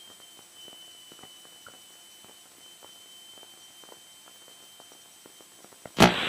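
Cockpit intercom feed in a Cessna 172S: low hiss with a faint steady high whine and scattered faint clicks. Near the end comes a sharp click and a loud burst of radio static, like a transmission breaking squelch.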